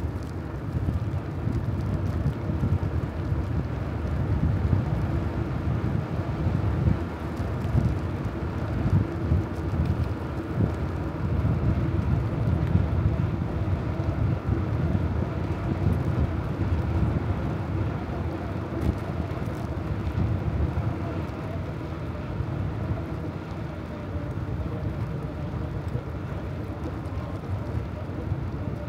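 Wind buffeting the microphone of a camera on a moving bicycle: a low, uneven rumble that swells and falls back.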